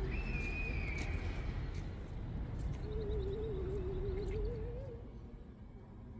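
Outdoor ambience with a steady low rumble and bird calls: a high, drawn-out whistle near the start, then a trembling, wavering cooing call, typical of a pigeon, lasting about two seconds. The sound drops to a quieter hush about five seconds in.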